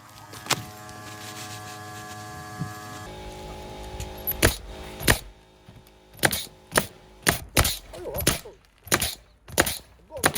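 Pneumatic roofing coil nailer driving nails through bitumen shingles into wooden decking: one sharp shot, then after a pause a run of about ten shots, roughly two a second. A steady background tone runs under the first part and fades out before the last few shots.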